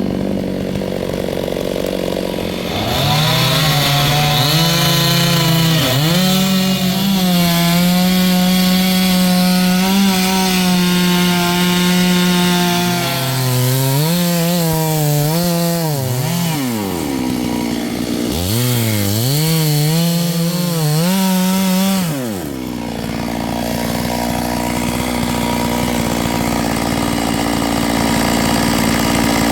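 Stihl two-stroke chainsaw revved up about three seconds in and run at high revs cutting wood, its pitch sagging and recovering several times under load. It drops back to idle a little over two-thirds of the way through.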